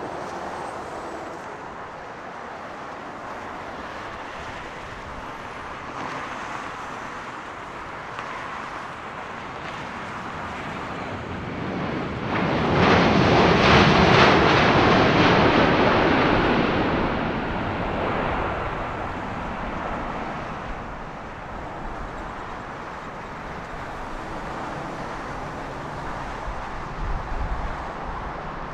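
Boeing 787-10 airliner's GEnx-1B turbofan engines as it lands and passes close by on the runway. The jet noise builds slowly, swells to a loud peak about halfway through, then fades as the aircraft rolls away.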